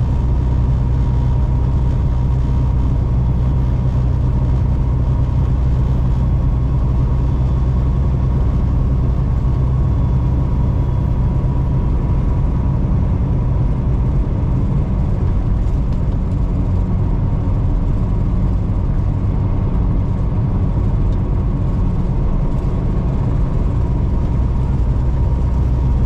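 Kenworth semi truck's diesel engine running steadily on the highway: a constant low drone with road noise and a faint steady whine, with no change in engine speed.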